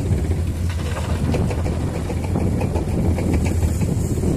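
Diesel engines of heavy earthmoving machines, an excavator and dump trucks, running steadily with a constant low hum.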